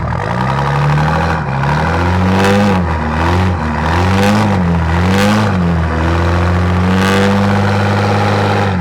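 A vehicle engine revved while standing still for a noise-level test. The revs rise and fall several times, then are held steady at a higher speed for the last few seconds.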